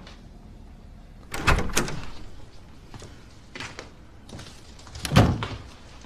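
A door being opened and closed: a couple of sharp clunks of the latch about one and a half seconds in, softer knocks in the middle, and the loudest clunk just after five seconds.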